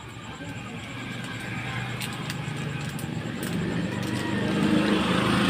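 A motor vehicle passing close by, its engine and road noise growing steadily louder to a peak near the end. A few faint clicks sound in the middle.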